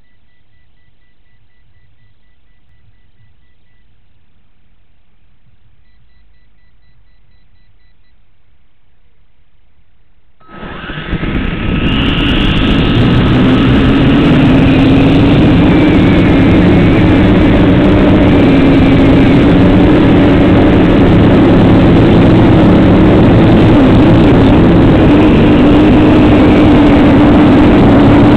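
XK X250-A Alien quadcopter's motors, heard from its own onboard camera: faint rapid beeping, then about a third of the way in the motors spin up suddenly to a loud, steady whine as the quad lifts off.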